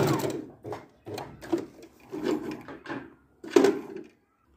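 Electric sewing machine stitching, stopping just after the start; then fabric is pulled from under the presser foot and handled, with irregular rustling and rubbing and a thump about three and a half seconds in, the loudest sound.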